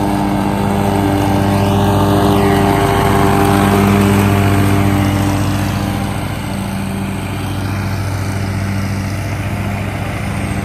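Zero-turn riding mower running steadily with its blades cutting tall grass as it passes close by. It is loudest about four seconds in, then grows quieter as the mower moves off down the lane.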